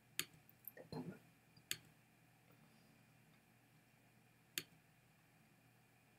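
A few sharp clicks of a computer mouse, three of them spread out over several seconds, against near-silent room tone.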